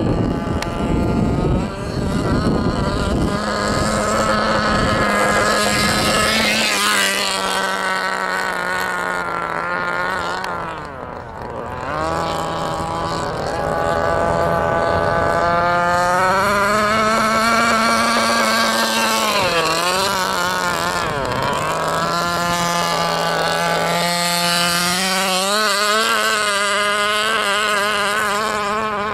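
Small two-stroke engine of a gas-powered RC buggy running as it drives, its pitch rising and falling as the throttle is opened and closed, with a short drop in loudness about eleven seconds in.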